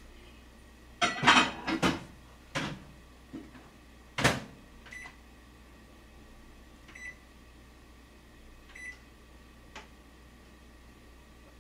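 Kitchen handling around a microwave oven: a cluster of loud knocks and clatter about a second in and a sharp knock about four seconds in, then three short high beeps about two seconds apart, over a steady low hum.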